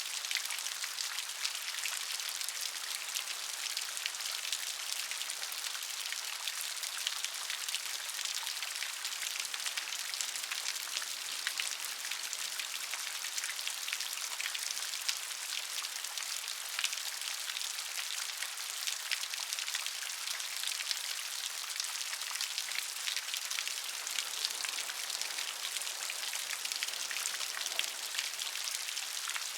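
Steady rain falling, a dense patter of many small drops hitting a surface with a hiss and no thunder.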